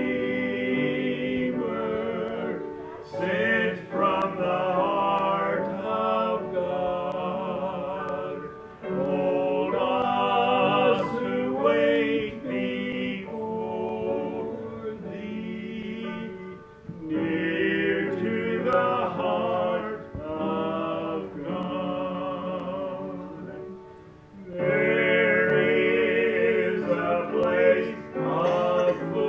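Two men singing a hymn as a duet, in long sustained phrases with vibrato, with brief breaths between lines.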